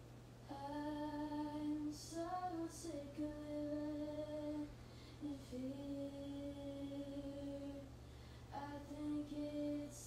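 A woman's voice singing long, held notes, with a short slide up about two seconds in and brief breaks near the middle and toward the end. A steady low hum runs underneath.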